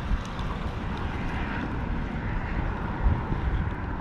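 Steady low rumble of passing traffic.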